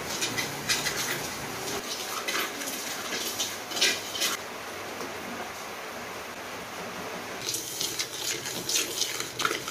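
Dry rice grains stirred and scraped around a wok with a wooden spatula while they roast for rice coffee, in intermittent runs of scraping and rattling, the loudest of them about four seconds in and again near the end.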